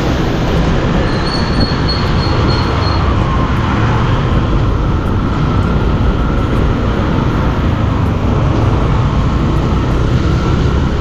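Steady rushing wind on the microphone over the rumble of a motorcycle and its tyres on a wet road while riding.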